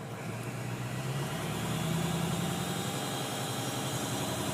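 Ford 6.0L Power Stroke diesel engine running, with turbo whine and a whooshing air hiss over it. The engine picks up slightly a second or so in. The owner takes the hiss for air escaping somewhere, a turbo intake or boost leak.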